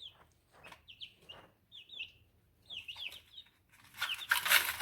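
Young chickens peeping: short, high, falling chirps in quick twos and threes. About four seconds in comes a louder, brief rustling burst.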